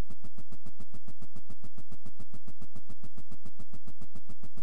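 Steady, rapidly pulsing buzz, around ten pulses a second, at an even level: the animation's sound for a vibrating tuning fork set on a sonometer.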